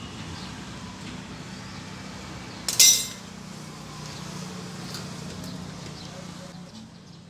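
Oxy-acetylene gas welding torch hissing steadily as a steel body panel is welded over rust holes. There is one sharp, loud metallic clink just under three seconds in.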